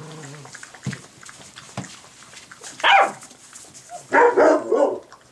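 Bernese Mountain Dog puppies play-fighting: a sharp yelp falling steeply in pitch about three seconds in, then a louder burst of high yapping barks a second later.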